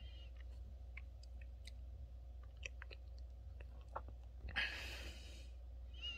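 Small curly-coated dog asleep, breathing: faint mouth clicks, then a long breathy sigh about four and a half seconds in, and a thin whistling breath near the end.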